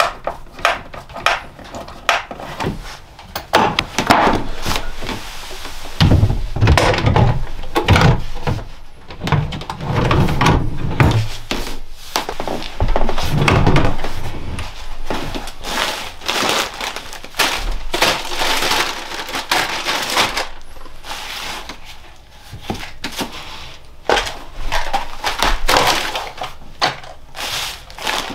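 Wooden knocking, thudding and scraping as boards are handled and worked, an irregular run of sharp knocks with heavier thuds in the middle stretch.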